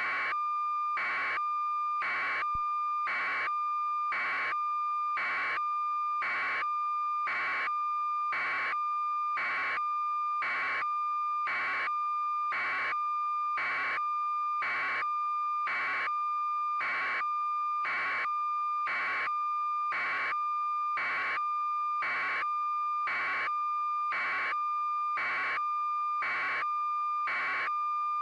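Steady electronic tone with a beep pulsing over it about once a second, unchanging throughout.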